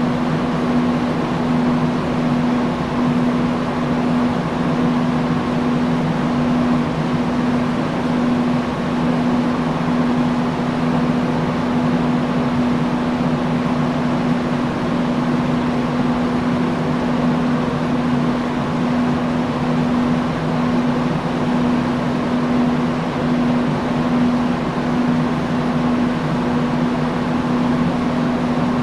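Industrial fan running steadily: a constant rush of air with a steady low hum.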